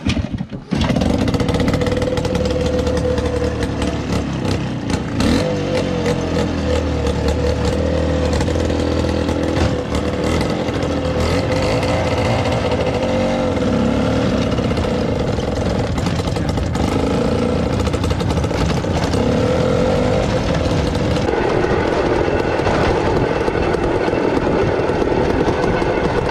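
Small engine of a homemade motorized rail car (a Pionerka) running loudly, its pitch rising and falling with the throttle, starting abruptly less than a second in, with rattling clicks as the car rides the narrow-gauge rails.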